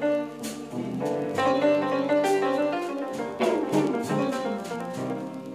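Background music: an instrumental passage led by piano, with a steady beat.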